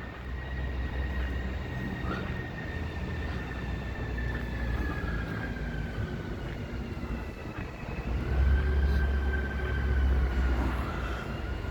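A steady mechanical whine that wavers slightly in pitch, over a low rumble that swells for a couple of seconds about eight seconds in.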